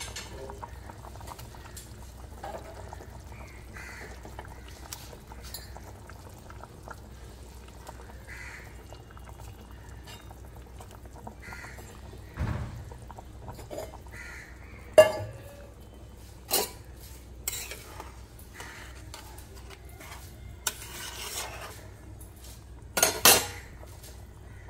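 Metal spoon clinking and knocking against a stainless steel pan of simmering curry as fried fish pieces are put in. Quiet handling for the first half, then a scattering of sharp clinks in the second half, over a low steady hum.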